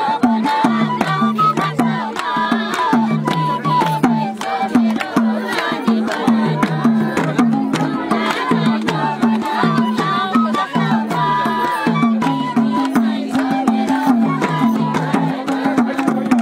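Madal hand drum and bamboo flute playing a Nepali Jhyaure folk dance tune live. The drum's repeated bass strokes bend slightly in pitch under quick slaps, and the flute carries a stepping melody above.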